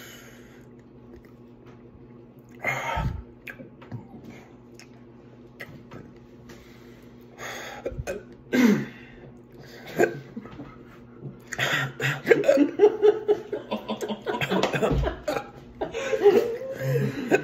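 A man's pained breaths and strained vocal noises: a few short separate bursts at first, then from about the middle on a dense run of gasps, groans and strained laughter. They are his reaction to the burn of the Paqui One Chip Challenge chip.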